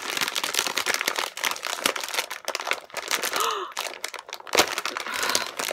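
Crinkling of a potato chip bag being gripped and pulled at to tear it open from the top, the sealed top not giving way. A short strained grunt about three and a half seconds in.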